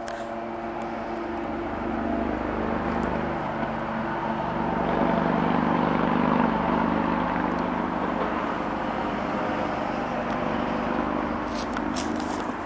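Diesel freight locomotives approaching, their engines a steady pitched drone that grows louder toward the middle and stays strong.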